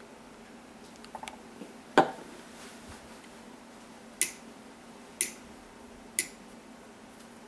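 Small handling clicks and knocks: a few faint clicks, then a sharp knock about two seconds in, then three crisp clicks evenly spaced about a second apart.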